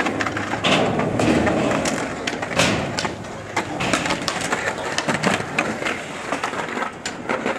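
Skateboard wheels rolling on concrete, with repeated sharp clacks of boards hitting the ground and ramps; the loudest clack comes about two and a half seconds in.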